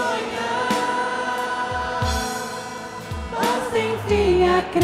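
Congregation singing a Portuguese Catholic worship song over instrumental accompaniment with a bass line, holding one long note and then moving to a new pitch about three and a half seconds in.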